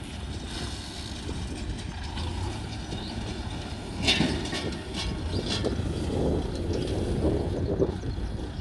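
Kubota tractor pulling a straw baler through rice stubble: the diesel engine runs steadily under the mechanical clatter of the baler, with a few sharp clicks around four to six seconds in.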